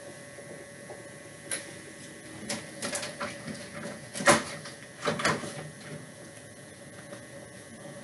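Scattered knocks and clatters of someone handling things in a small room, the loudest about four seconds in, over a faint steady hum.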